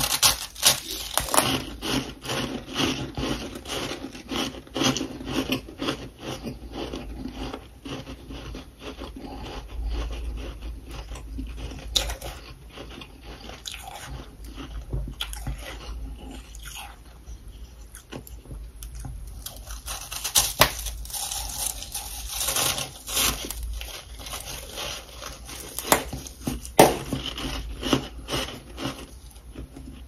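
Close-up ASMR crunching of humidifier freezer frost being bitten and chewed: a dense run of crisp, crackly bites, with a few sharper single cracks later on.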